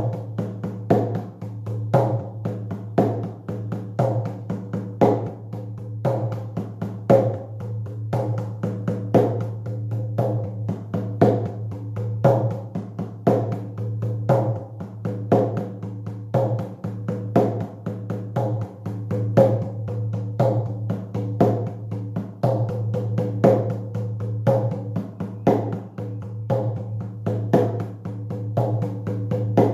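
Shamanic hand drum beaten in a steady, even beat of about two strokes a second, over a steady low hum.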